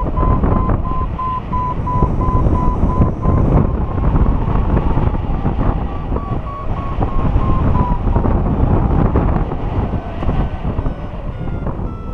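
Airflow buffeting the microphone during paraglider flight, with a variometer beeping over it: a thin tone whose pitch creeps up over the first two-thirds, then breaks off and returns higher and in slower, spaced beeps near the end. The beeping is the sign of the glider climbing in lift.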